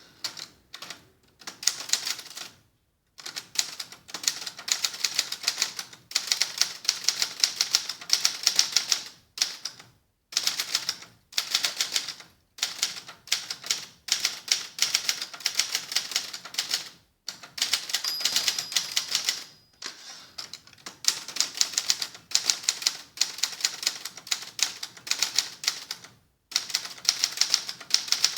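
Adler Gabriele 25 manual typewriter being typed on, with its cover removed: rapid runs of sharp keystroke and typebar clacks in bursts, broken by short pauses. A brief thin ring sounds once, a little past the middle.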